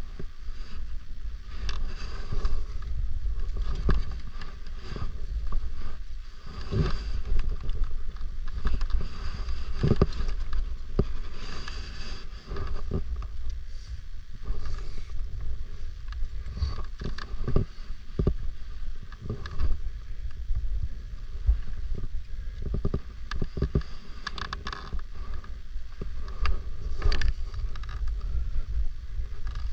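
Steady low rumble of wind buffeting the microphone, with irregular knocks and scrapes scattered through it.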